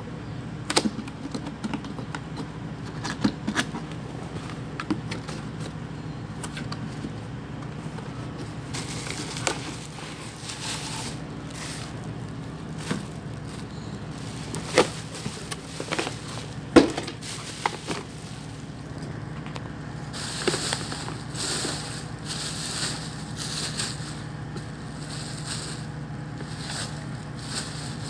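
Packaging being handled during an unboxing: scattered sharp clicks and knocks, and crinkling rustles in the later part, over a steady low hum.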